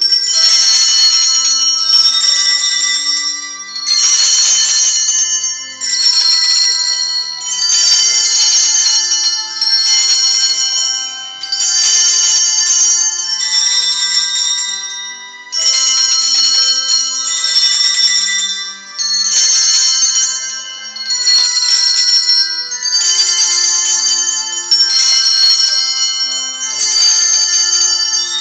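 Hand bells ringing in repeated bursts, roughly one every two seconds, several high bell pitches sounding together and ringing on between bursts.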